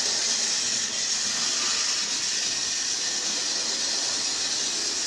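OO gauge model locomotives running on set track: a steady, even whirring hiss of their small electric motors and wheels on the rails.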